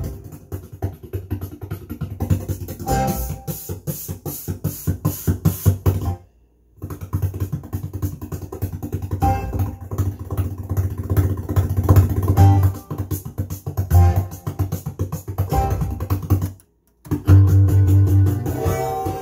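Guitar-led music playing through a McIntosh MA6100 preamp-amplifier as it is tested after repair. The music cuts out completely twice, for about half a second each time.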